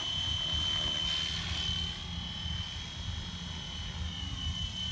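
Fly Wing FW450 RC helicopter in flight, a steady high-pitched whine over a low rotor hum, a little quieter from about two seconds in.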